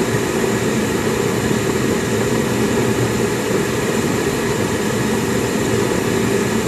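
Gas furnace running on emergency heat with all burners lit: a steady rushing hum from the burners and blower that does not change.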